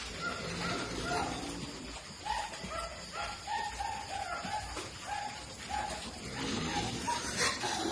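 Newborn piglets making short, repeated squeaky calls, about two a second, with a brief clatter near the end.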